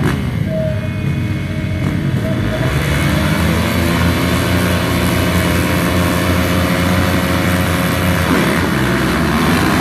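Many motocross bikes running together at the starting gate: a loud, steady din of engines whose pitch shifts now and then.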